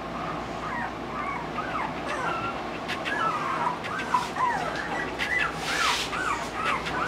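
Litter of young Olde English Bulldogge puppies whimpering, many short high cries rising and falling in pitch, overlapping and growing busier about halfway through.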